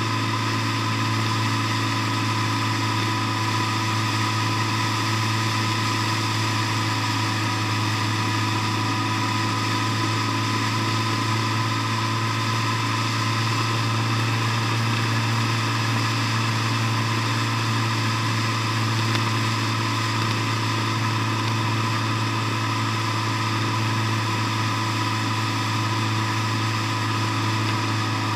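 Vehicle engine running at a steady cruising speed, an unchanging low drone with a thin steady whine above it, heard from a camera mounted on the moving vehicle.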